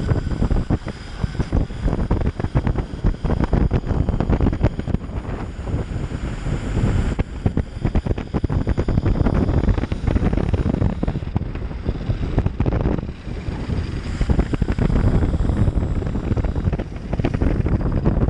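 An electric mountainboard in motion: wind buffets the microphone over the rumble of its pneumatic tyres on asphalt. Under it is a faint, steady, high-pitched whine from its twin motors and E-Toxx helical gear drives.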